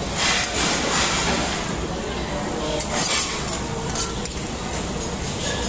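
Metal tongs and utensils clinking against metal dishes on a restaurant table, a few separate clinks: a cluster in the first second and a half, one about three seconds in, and one near the end. Other diners talk in the background.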